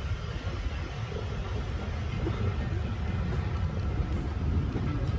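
Railway passenger coaches rolling slowly past on arrival, a steady low rumble of wheels on the track.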